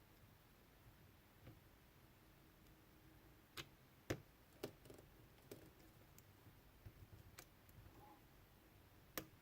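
Faint, scattered metal clicks of a hook pick working the pin stack inside a Cisa padlock, with about half a dozen sharp ticks over the stretch as pins are lifted and set.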